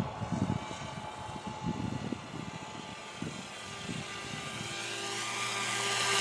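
Bixler 2 RC plane's electric motor and propeller whining steadily, heard with wind buffeting on a wing-mounted camera; the sound grows louder toward the end as the plane passes low over the field.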